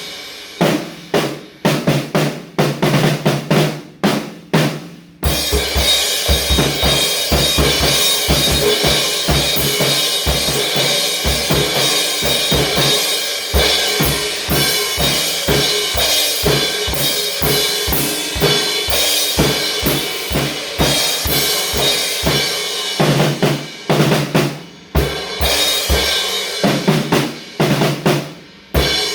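Drum kit being played, with quick bass drum and snare hits and short rolls, over music with held notes.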